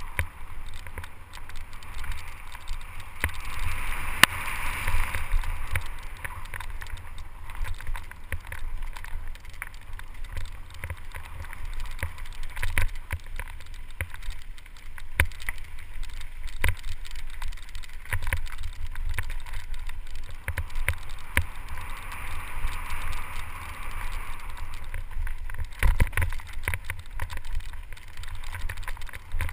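Mountain bike rattling down a rough dirt singletrack: steady tyre noise on loose dirt, frequent sharp knocks and clatter as the bike hits bumps, and a low rumble of wind on a helmet-mounted camera. The noise swells louder twice.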